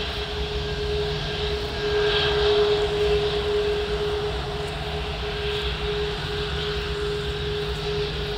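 Airbus A340-600's four Rolls-Royce Trent 500 turbofans running at low taxi power: a steady whine over a low rumble and hiss, swelling a little about two seconds in.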